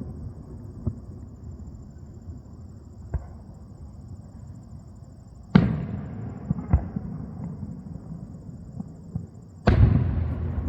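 Aerial fireworks shells bursting: a few small cracks, then two heavy booms, one about halfway through and one near the end, each trailing off in a long rumbling echo. Crickets chirp steadily underneath.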